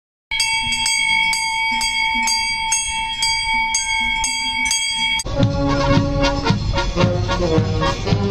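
A large cowbell ringing, struck about three times a second in a steady rhythm. It cuts off abruptly about five seconds in, and a traditional Alpine brass band starts playing a march.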